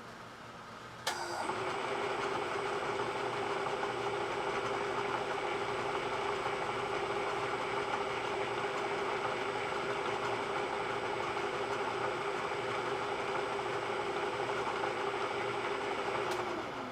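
Electric motor of a metalworking machine switched on with a sudden start about a second in, running steadily with a high whine, then switched off and winding down near the end.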